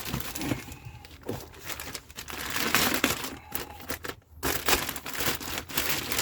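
Irregular rustling and crinkling of packaging being handled around a new quick strut assembly, with a short break about four seconds in.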